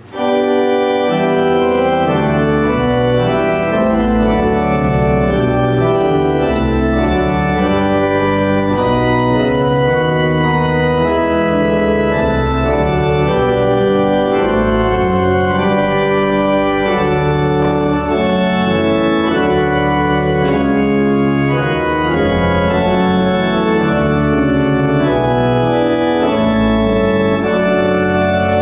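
Organ playing a slow piece of held, sustained chords that change every second or so, starting suddenly at the outset.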